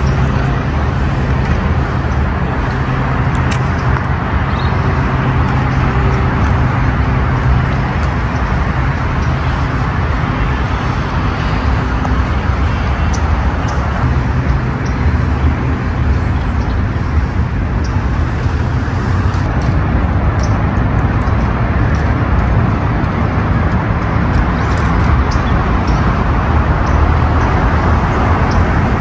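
Steady road traffic noise, with a low engine hum standing out over the first several seconds and again briefly in the middle.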